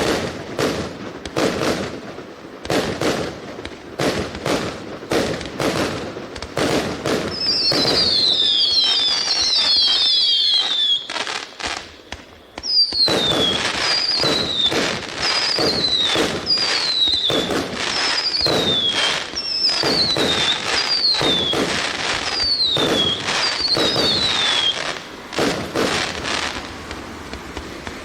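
A 200-shot, 0.8-inch consumer firework cake firing, its shots coming about two a second. From about seven seconds in, many of the shots carry high whistles that fall in pitch, typical of whistle-to-chrysanthemum tubes. There is a short lull near the middle.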